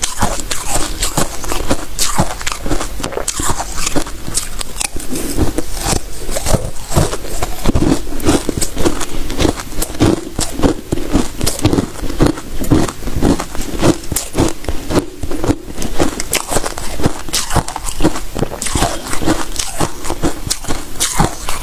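Freezer frost ice being chewed, close to a lapel microphone: a dense, rapid run of crisp crunches.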